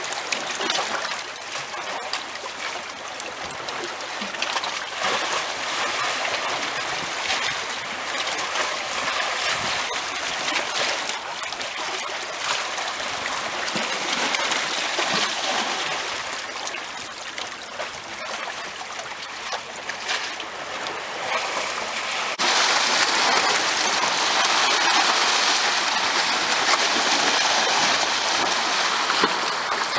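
Seawater washing and gurgling in and out among shoreline rocks, rising and falling with each small wave. About three-quarters of the way through, the sound jumps abruptly to a louder, steadier rush.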